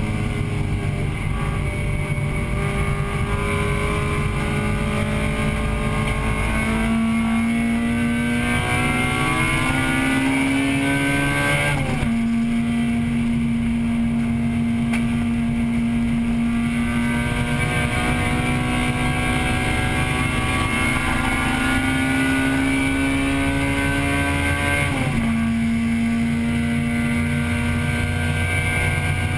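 1998 Acura Integra Type-R's 1.8-litre VTEC four-cylinder engine running hard on track, heard from inside the car. The pitch climbs slowly and drops suddenly twice, about twelve seconds in and again near twenty-five seconds, as the driver shifts up, over steady road and wind rumble.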